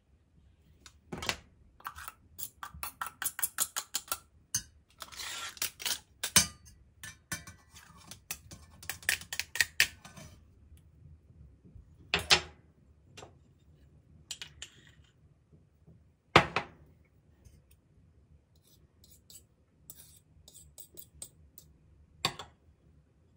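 Metal spoon mixing riced potato with butter in a Mauviel copper saucepan: quick runs of clinking and scraping against the pan, with five sharper knocks spread through.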